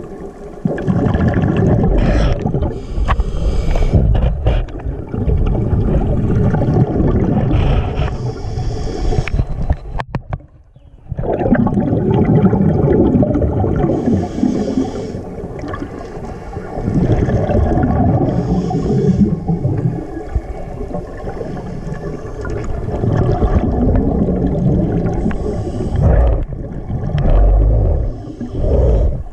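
Scuba diver's exhaled bubbles rumbling and gurgling out of the regulator, heard underwater, in long breaths of a few seconds with short pauses for inhaling, the clearest pause about ten seconds in.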